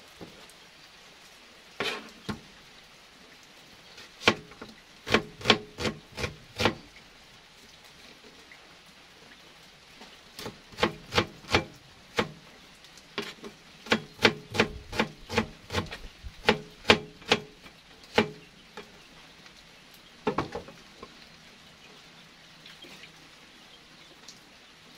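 Kitchen knife chopping red onion on a plastic cutting board: runs of sharp taps, about three a second, broken by pauses.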